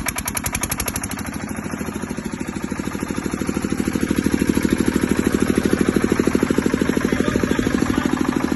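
Bajaj 12.5 kVA diesel generator set running just after start-up, its engine firing in an even rapid pulse. It is harsher for the first second, then settles into steady running that grows a little louder about three to four seconds in.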